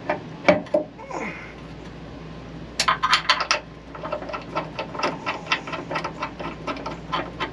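Metal-on-metal clicks and knocks as a SumoSpring's steel top plate is pushed up and worked into line with its mounting hole on a pickup's frame: a quick cluster of sharp clicks about three seconds in, then a run of lighter, fairly evenly spaced ticks, over a steady low hum.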